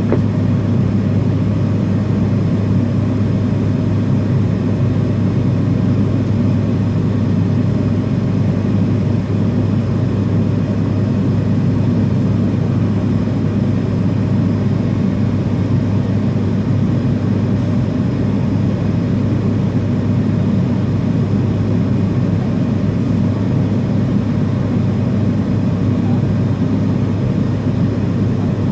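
Steady low drone of cabin noise inside an MD-80 airliner on the ground, with a constant hum under it. The engines are at low power, well short of takeoff thrust.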